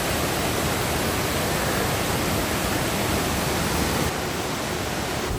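Steady rush of water pouring over a small waterfall on a mountain creek, dipping slightly in level about four seconds in.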